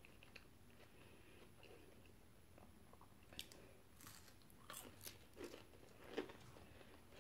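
Faint close-up chewing and mouth sounds of a person eating French fries, with a few soft smacks and clicks between about three and six seconds in, over a low room hum.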